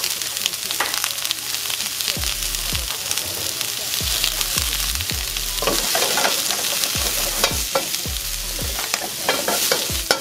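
Sliced onions sizzling in hot oil in a wok over a medium-high gas flame. From about halfway through, the onions are tossed, and the wok clatters and scrapes with a run of clicks and knocks.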